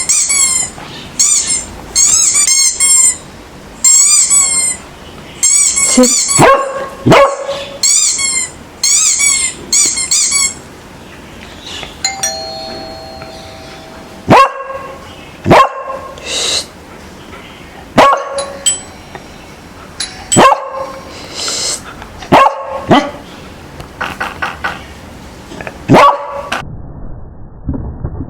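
A doorbell ding-dong chime played again and again, every two to three seconds, through the second half, with a dog barking. Before that comes a run of quick, high squeaky chirps repeating several times a second.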